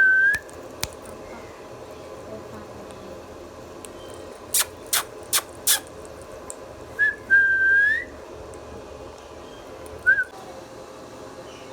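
Indian ringneck parrot whistling: a short whistled note at the start, a longer whistle rising at its end about seven seconds in, and a brief note near the end. Between these come four sharp, short, high calls in quick succession.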